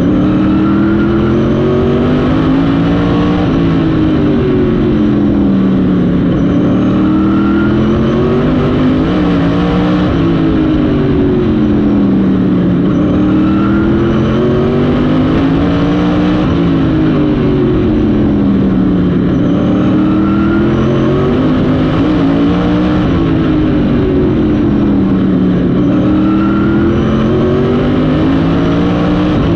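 Tour Modified race car's V8 engine at racing speed, heard from inside the cockpit. Its pitch rises and falls over and over, about every six seconds, as the car accelerates down each straight and lifts off into the turns of a short oval.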